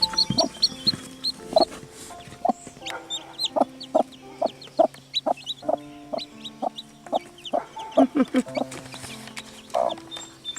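Newly hatched chicks peeping in quick, high, falling chirps while the broody mother hen clucks softly and steadily. Quiet background music runs underneath.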